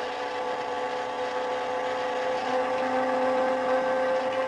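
An-2 biplane's engine droning steadily, growing louder toward the end, as the plane noses up into a stall.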